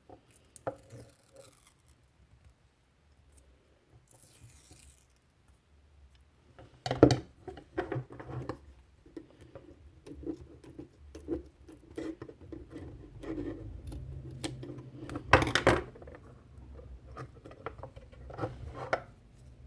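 Hands working on small model parts: scattered light clicks and taps, with two sharper knocks about seven seconds in and near the middle.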